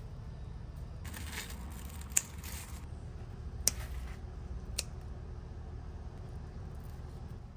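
Scissors snipping cucumber stems: three sharp snips over about three seconds, the first the loudest, with leaves rustling as the vines are handled.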